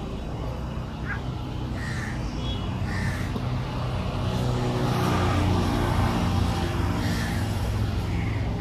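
A motor running steadily, giving a continuous low drone, with a few short bird calls over it.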